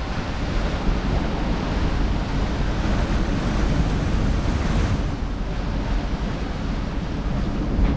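Strong wind buffeting the microphone over the rushing and breaking of waves along a sailing yacht's hull, the boat driven hard in about 25 knots of wind. A steady, dense noise that swells a little midway.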